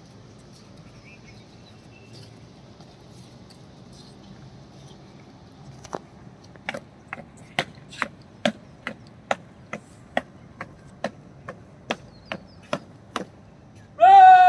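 A steady run of sharp taps, about two a second, starts about six seconds in and goes on for about seven seconds. Near the end a man's voice calls out loudly and drawn out, like a parade command.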